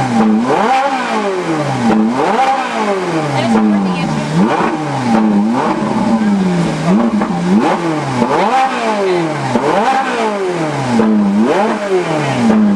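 Ferrari 458 Italia's naturally aspirated V8 being revved while parked: about ten quick throttle blips in a row, each sweeping up in pitch and falling back toward idle.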